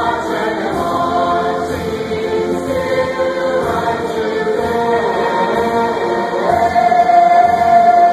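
A large stage chorus sings together with band accompaniment. The voices swell into a louder held note about six and a half seconds in.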